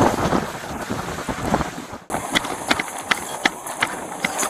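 Strong wind buffeting a police body-worn camera's microphone. About two seconds in it cuts off abruptly, leaving a quieter stretch with a string of light clicks and taps.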